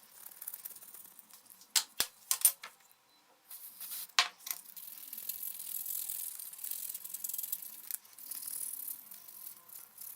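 Small hard parts of a blender clicking and knocking against each other as they are handled, several sharp clicks in the first half, followed by a longer hissing, rubbing noise like scrubbing or wiping.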